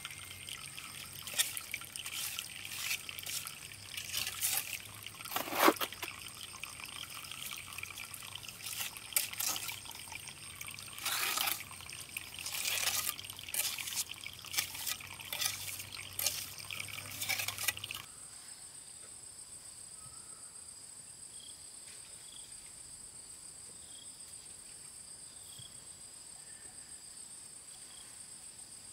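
Water trickling and dripping into a brick-and-mortar tank, with irregular splashes. About two-thirds of the way through it cuts off suddenly, leaving a steady high-pitched insect drone.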